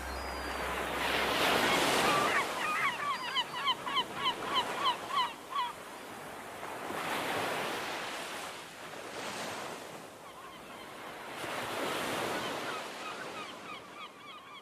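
Sea waves wash in slow swells about every five seconds. A flock of birds calls over them in runs of short repeated cries, about four a second, loudest a few seconds in and fainter near the end.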